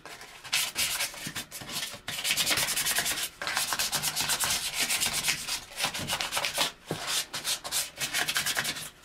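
Sandpaper rubbed by hand around Schedule 40 PVC pipe in quick back-and-forth strokes, a rapid scratchy hiss with a few brief pauses; the pipe is being scuffed clean so the glue will bond.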